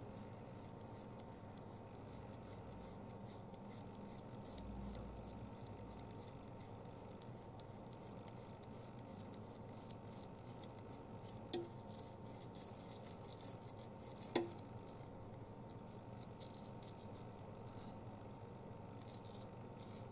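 Faint crackling and scratching as stringy adhesive is pulled and picked off a cracked iPhone 7 screen's glass. The crackle is densest in the middle, with two sharper clicks a few seconds apart.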